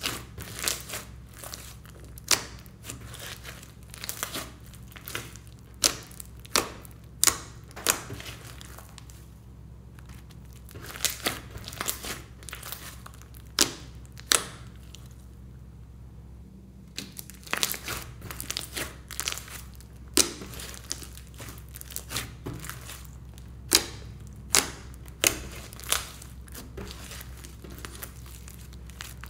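Hands kneading, stretching and squeezing a large mass of glossy, glitter-flecked slime: irregular sticky pops, clicks and crackles as the slime is pressed and pulled apart, with a brief lull about halfway through.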